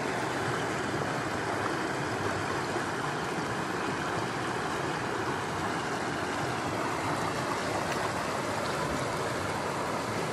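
Shallow, rocky stream running steadily: an even, continuous rush of flowing water.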